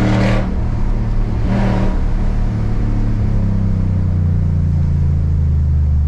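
Ford Raptor pickup truck driving, its engine running with a steady low drone that settles slightly lower in pitch partway through.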